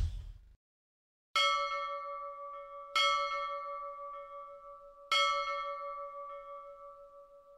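A bell struck three times, about a second and a half apart and then two seconds apart. Each stroke has the same pitch and rings out slowly, and the last is still sounding at the end. Before the first stroke, the tail of a whoosh fades out.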